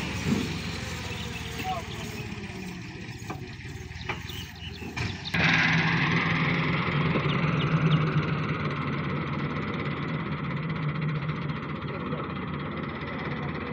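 Tractor engine running, with a sudden jump to a louder, heavier note about five seconds in, which then holds steady.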